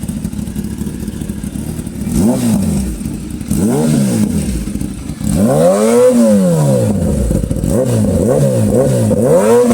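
Sport-bike engine with a full-system aftermarket exhaust, idling and then being revved in the stand: a couple of single throttle blips, one long high rev about six seconds in, and a quick run of short blips near the end.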